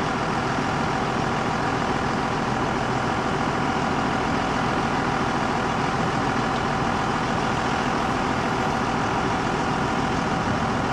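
An engine idling steadily, an even drone with no change in speed.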